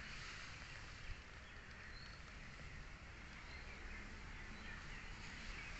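Faint steady background noise with no clear source, with a faint click about a second in and a brief faint high chirp around two seconds.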